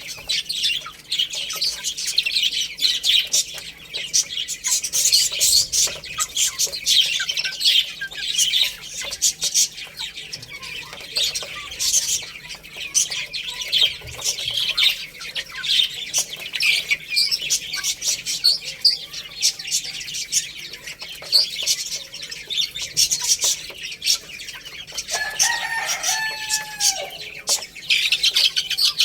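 A flock of baby chicks chirping continuously, many short high-pitched peeps overlapping. Near the end comes a single lower, longer call.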